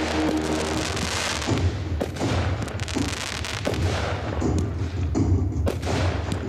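Aerial fireworks shells bursting in a dense crackling barrage, thinning from about four seconds in to separate sharp bangs over deep thumps.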